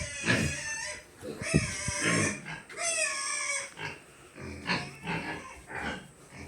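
Pigs squealing and grunting: several calls, the two loudest a second or so apart with a slightly falling pitch, then shorter, lower calls near the end.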